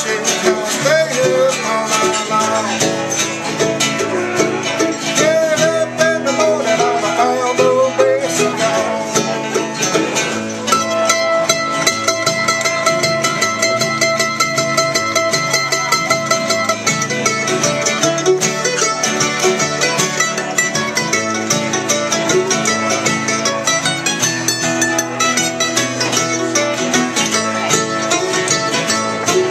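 Bluegrass music with banjo and guitar picking.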